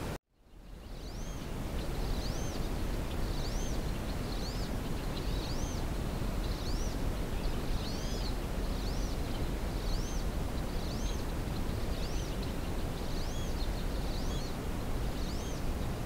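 Wood duck giving repeated high, thin whistled calls, each rising and then falling, about one every half second to second, over a steady hiss. The calls begin about two seconds in, after a brief dropout at the start.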